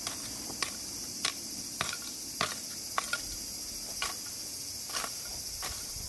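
Steady high-pitched chorus of summer insects, with sharp clicks a little under twice a second.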